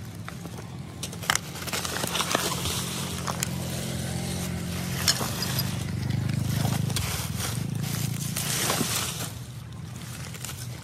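Rubbish being scraped and rummaged through, with scattered clicks and knocks, over a steady low engine hum that swells about two-thirds of the way in.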